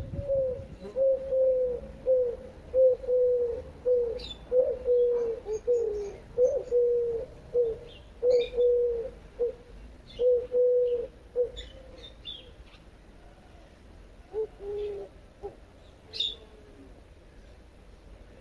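A bird calling in a long, even run of short low notes, about two a second, which stops about eleven seconds in. A few lower notes follow a few seconds later, and small birds chirp high above now and then.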